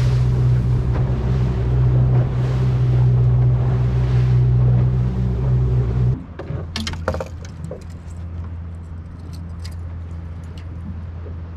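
Boat engine running under way, with hull and spray noise, then throttled back sharply about six seconds in to a lower, quieter idle. A short burst of clanks and rattles follows the slowdown.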